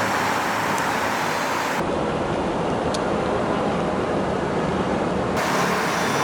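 Axial SCX10 III radio-controlled crawler truck driving, a steady noise of its electric motor, gears and tyres on the ground. The sound changes abruptly about two seconds in and again near the end, where the footage cuts between clips.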